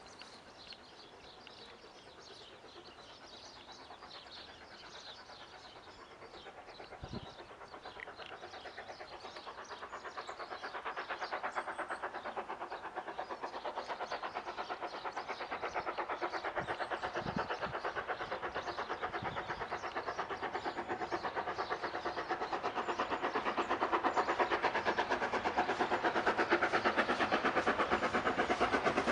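Steam locomotive approaching while working under steam, its rapid, even exhaust beats growing steadily louder as it nears.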